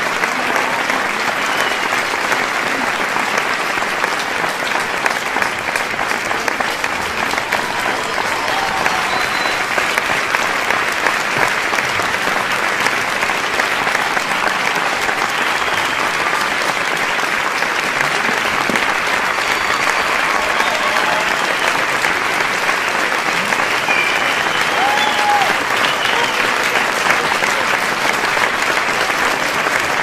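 Large crowd applauding steadily, with scattered shouts and cheers rising here and there above the dense clapping.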